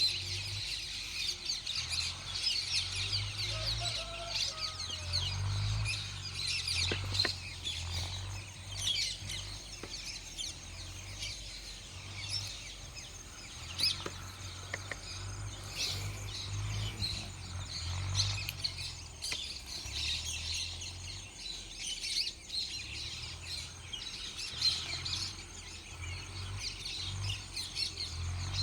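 Many small birds chirping continuously in a dense, overlapping chorus, with a low uneven rumble underneath.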